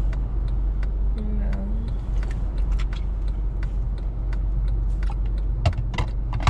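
Steady low hum of a car's engine heard inside the cabin, with scattered light clicks and crackles from a plastic water bottle being handled. Two sharper knocks come near the end.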